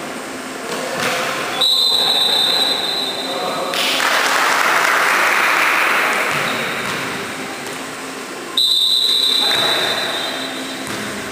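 Volleyball referee's whistle: two long, steady blasts, the first about one and a half seconds in and lasting about two seconds, the second about eight and a half seconds in. In between, the voices of players and spectators echo in a large sports hall, with a swell of crowd noise.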